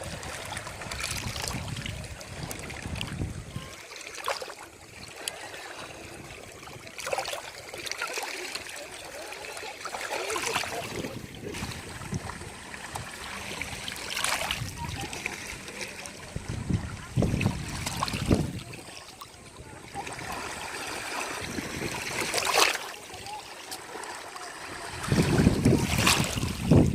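Ocean waves washing onto a beach, with several louder surges of surf breaking between quieter stretches.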